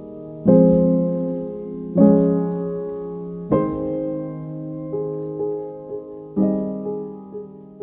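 Slow piano music: chords struck and left to ring and fade, with lighter notes in between.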